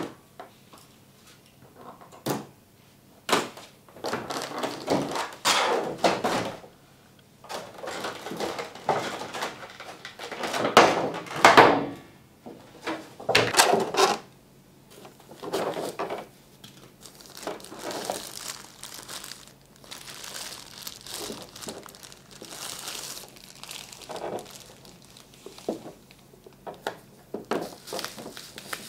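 Thin plastic wrapping bags and a clear plastic blister tray crinkling and crackling as they are handled and pulled apart, in irregular bursts with occasional sharp clicks and knocks of the stiff plastic.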